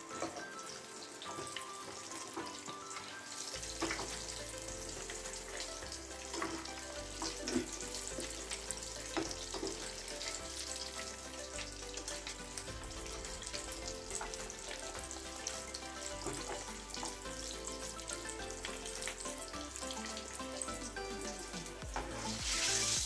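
Batter-coated potato vadas deep-frying in hot oil in a kadai: a steady sizzling that swells briefly near the end. Background music plays over it.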